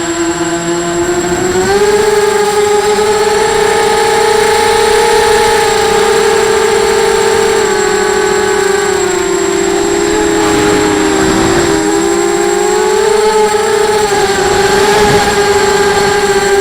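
A 250-size FPV racing quadcopter's motors and propellers whining, the pitch rising about two seconds in and wavering with the throttle. About ten seconds in the tones split apart and dip, then climb again near the middle of the second half.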